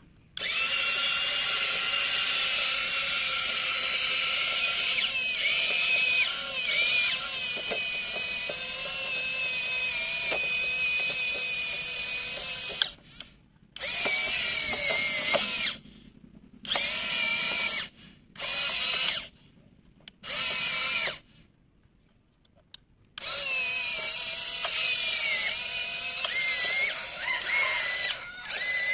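Small motor of a homemade mini rice harvester running with a high-pitched whine that wavers in pitch. It runs steadily at first, then stops and starts again several times in short runs, with one pause of about two seconds, before running steadily again near the end.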